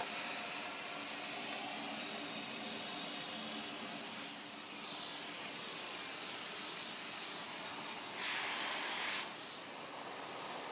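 Ruwac WS 2210 industrial vacuum cleaner running, its suction hissing steadily through the hose nozzle, with a louder, brighter rush for about a second near the end.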